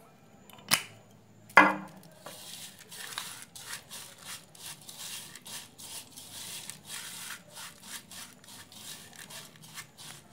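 Two sharp knocks about a second in, the second the louder, then a silicone basting brush scraping and stirring oiled dried chimichurri herbs in a glass bowl, a quick run of rubbing strokes, several a second.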